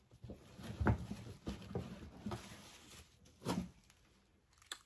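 Handling noise as shoes are pulled out of a box: a few soft, scattered knocks and rustles, the loudest about a second in.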